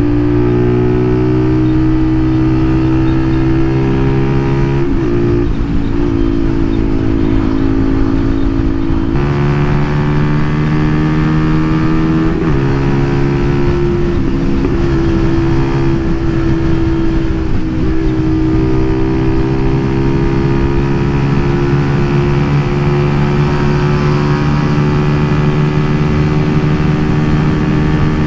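Zontes Roadster R 125's single-cylinder 125 cc engine breathing through an aftermarket exhaust under acceleration, its note climbing steadily, with three short breaks at gear changes.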